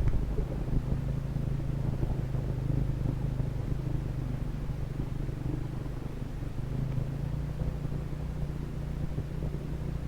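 Motorcycle engine running steadily while the bike rides along an off-road track.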